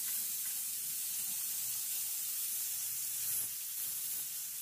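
Marinated chicken leg pieces sizzling in a little oil on a dosa griddle over low heat: a steady soft hiss.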